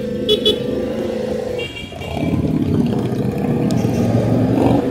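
CFMoto CL-C 450 motorcycle's parallel-twin engine running near idle, then pulling away and accelerating, growing louder from about two seconds in. There are two short high beeps about half a second in.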